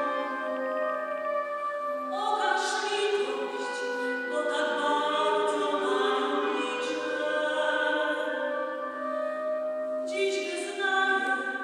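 Voices singing a slow devotional hymn in long held notes, the pitch moving to a new note every second or two.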